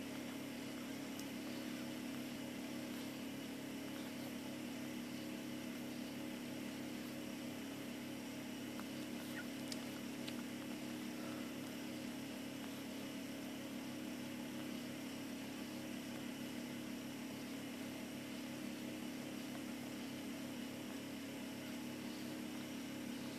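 A steady low hum with a constant level throughout, with a few faint ticks near the middle.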